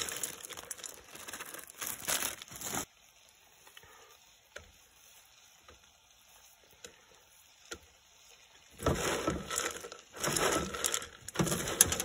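Dry dog kibble poured from a plastic zip-top bag, rattling into a metal skillet as the bag crinkles, for about the first three seconds. Then quiet with a few small ticks, and from about nine seconds in a gritty rustle of hands mixing the kibble with raw ground beef in the skillet.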